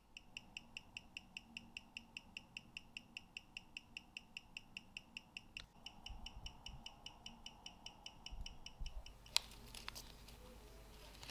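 Ticking of the restored 1920s Longines watch's mechanical movement, crisp and very regular at about five ticks a second. About nine seconds in, the ticking stops and a few sharp clicks and a faint rustle follow, from tweezers and a small plastic bag being handled.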